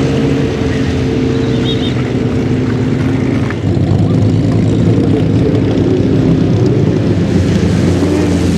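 Ferrari 365 GTB/4 Daytona's 4.4-litre V12 engine running as the car drives on the snow track. The engine note is steady and gets louder about three and a half seconds in.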